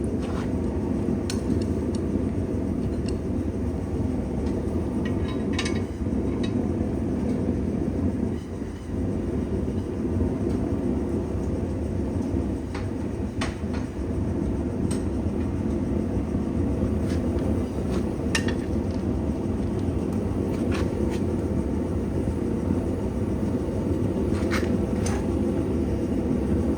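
A steady low rumbling roar, with scattered light metallic clicks and clinks over it.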